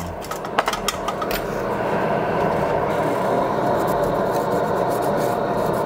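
A few sharp clicks of handling, then about a second and a half in a bench blower comes on and runs with a steady rushing noise.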